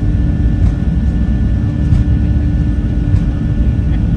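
Cabin noise aboard a Boeing 737-700: the CFM56-7B jet engines' steady low roar heard from inside the cabin, with a constant hum running through it.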